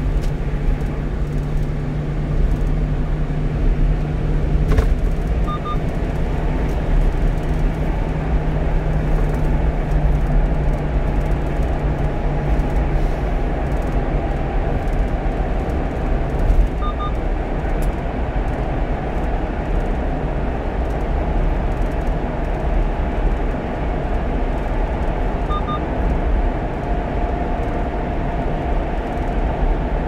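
One-ton truck cruising on an expressway: a steady engine drone and tyre and road noise. A faint short double beep sounds three times.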